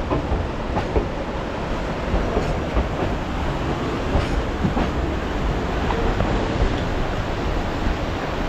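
Durango & Silverton narrow-gauge train cars rumbling steadily, with scattered sharp clacks and knocks at irregular intervals.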